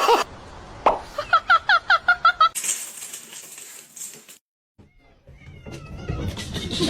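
Kitten mewing: a quick run of about nine short, high calls in a second and a half.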